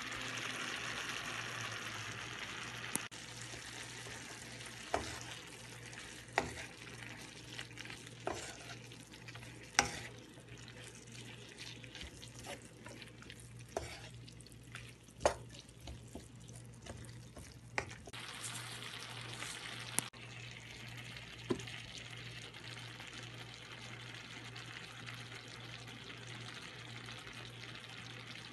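Seaweed stems and sliced onion stir-frying in a wok: a soft sizzle, strongest at the start and again over the last ten seconds, with a wooden spatula knocking against the pan about ten times.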